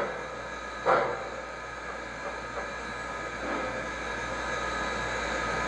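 Recorded steam locomotive sound played through the model Big Boy's Proto-Sound 3.0 speaker: a few slow exhaust chuffs about a second apart, the last about a second in, then a steady hiss that swells slightly.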